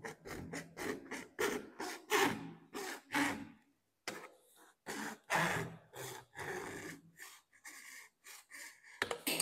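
Hacksaw cutting 32 mm plastic waste pipe: rasping back-and-forth strokes, about three a second, with a short break about four seconds in and lighter strokes over the last couple of seconds.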